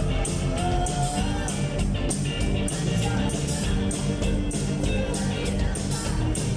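Rock band playing: electric guitar over a steady drum beat with cymbals.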